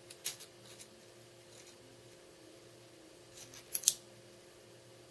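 Small sharp metallic clicks as a stack of neodymium ring magnets and steel washers on a stainless screw is handled and pressed together. There are a few light clicks in the first second and a louder double click near four seconds.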